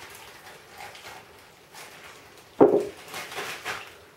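Thin plastic bag rustling and crinkling as cream is poured into it and the bag is handled, with one short, sharper knock about two and a half seconds in.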